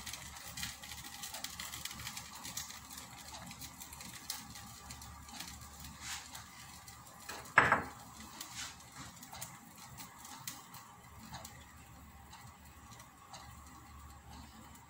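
Faint light pattering and small ticks as grated cheese is scattered by hand onto a flatbread in a frying pan, with one short louder knock a little past halfway.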